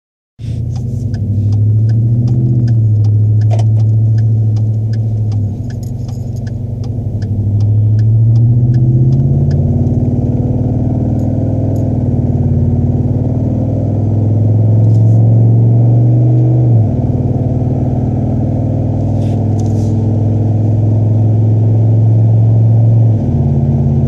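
Cabin sound of a 2013 Ford F-150's 5.0 L V8 through a Flowmaster 40 Series exhaust: a low rumble that rises in pitch as the truck accelerates and drops back suddenly three times as it upshifts. A light ticking, about three a second, runs through the first several seconds.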